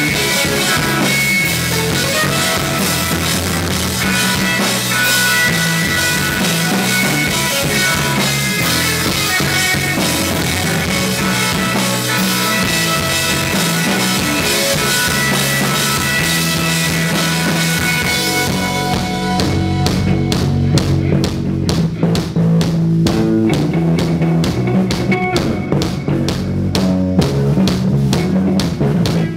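Live instrumental rock band playing: electric guitar, bass guitar and drum kit. About two-thirds of the way through, the full, dense sound thins out into a sparser section driven by steady drum hits.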